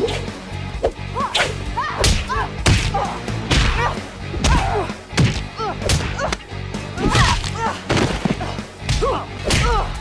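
Cartoon fight sound effects: a rapid string of punch and kick hits and whooshes, about one every two-thirds of a second, with short grunts and cries of effort from the fighters between them, over a low music score.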